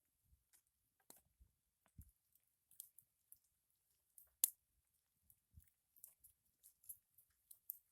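Apple-wood campfire crackling: sparse, irregular snaps and pops with one sharper pop about four and a half seconds in.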